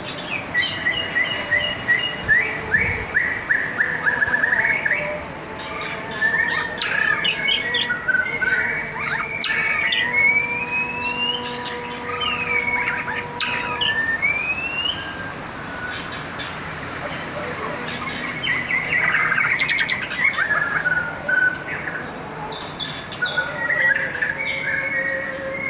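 A songbird singing a long, varied song of rapid chirps and trills, rising whistled glides and sharp short notes, with hardly a pause.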